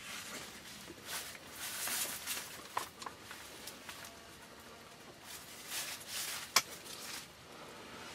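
Soft rustling and shuffling of people moving inside a hunting blind, in two short bursts, with a few faint ticks and one sharp click about six and a half seconds in.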